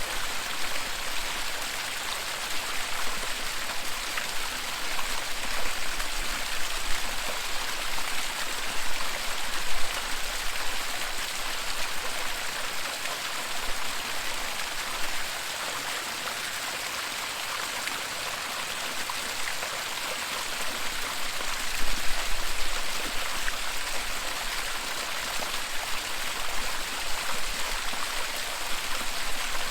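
Steady rush of falling and running water from a waterfall, an even hiss with small splashes rising and falling in level.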